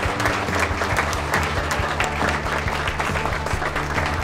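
Audience applauding, many hands clapping at once, with background music playing underneath.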